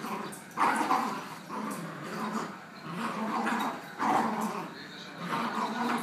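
Dog growling in about five rough bursts, a play growl during a tug-of-war over a rope; the loudest bursts come about half a second in and at about four seconds.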